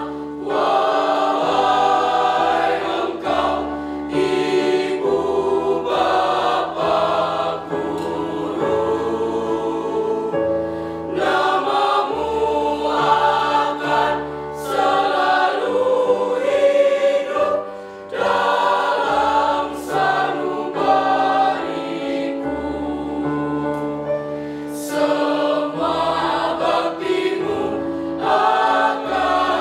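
Mixed choir of young women and men singing in harmony, holding chords in several parts that change every second or so.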